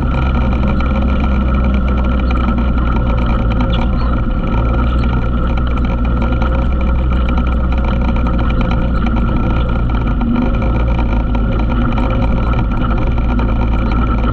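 ATV engine running steadily, its drone holding an even pitch and level throughout.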